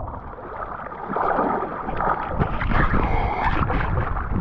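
Water splashing and gurgling around a kayak on a river, with a few small knocks.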